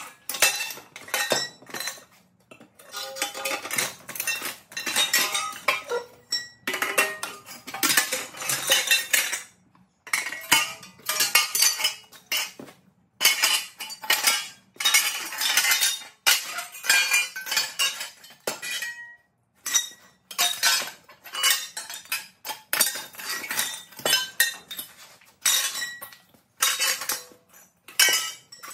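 Aluminum chair-frame tubing being cut apart with long-handled bolt cutters: a run of irregular metallic clanks and clinks as the tubes are snipped and the cut pieces drop and clatter onto the concrete floor, with a few short pauses.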